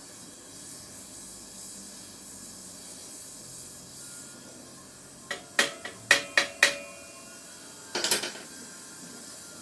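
Gas torch flame hissing steadily during the final brazing of a steel bicycle frame's seat lug, with a quick run of sharp, ringing metal clinks about five to seven seconds in and a short clatter of them near eight seconds.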